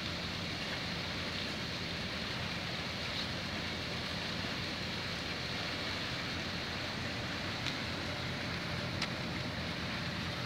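Steady low drone of a docked ferry's engines with the rushing hiss of its propeller wash churning the water alongside.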